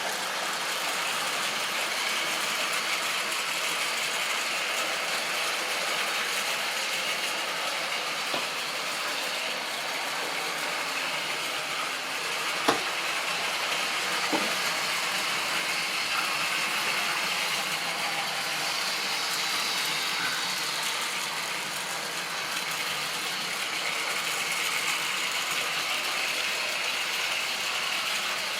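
Model railway train running on the track: the small electric motor and gears of the locomotive whirring steadily as the wheels roll over the rails. Two sharp clicks come about a second and a half apart near the middle.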